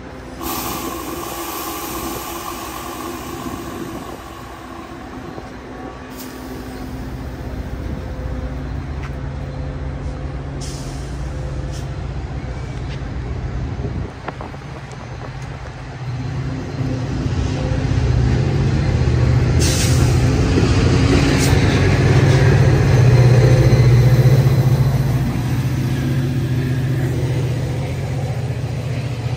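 Metra diesel commuter-train locomotive engine running, with a couple of brief high air hisses. The engine swells from about halfway through, is loudest a few seconds before the end, then eases a little.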